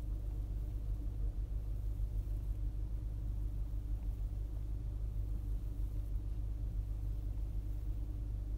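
Skoda Octavia A5's 1.6 CHGA petrol engine idling at a standstill, heard from inside the cabin as a steady low rumble with a faint steady hum above it. This is the unexplained noise the owner is trying to identify.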